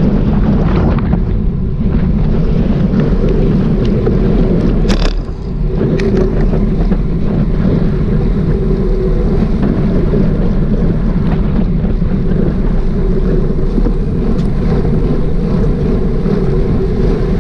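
Motorcycle engine running at a steady cruise, with wind rumbling over the microphone; the sound briefly dips about five seconds in.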